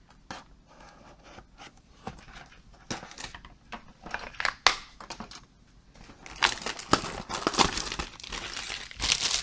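Plastic wrapping of a trading-card blaster box crinkling and tearing as it is handled, in irregular crackles that get denser and louder over the last few seconds.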